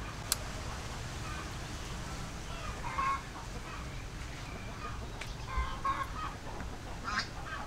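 Chickens clucking in short calls a few times: about three seconds in, twice more between five and six seconds, and once just after seven. A single sharp click comes right at the start.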